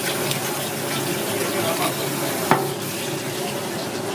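Water from a hand-held shower hose spraying over a spiny sea urchin as it is rinsed, a steady hiss. One sharp click about two and a half seconds in.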